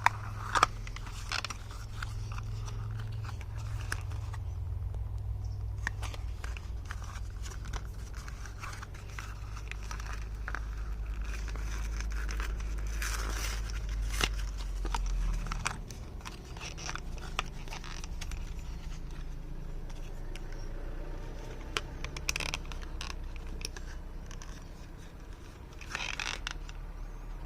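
Hands handling a bicycle bell and its clamp band: scattered small clicks and brief scrapes over a steady low hum.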